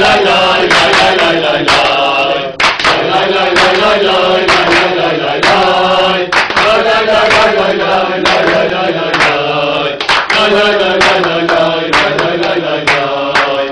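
Group of men singing a Beşiktaş football supporters' chant together in unison, with hand claps.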